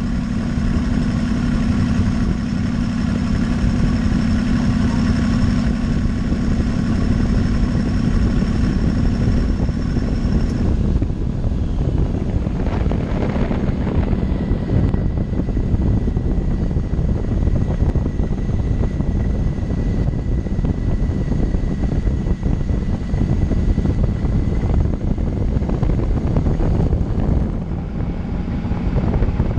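Twin-turbocharged Rover 3.9-litre V8 in an off-road buggy, running under way and heard from the driver's seat. The note is steady for about the first ten seconds, then turns rougher and noisier, with a thin steady high whine through the middle.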